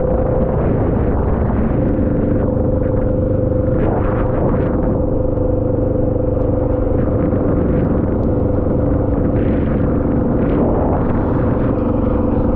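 A motor vehicle running steadily on the move: a constant low rumble with a steady hum on top.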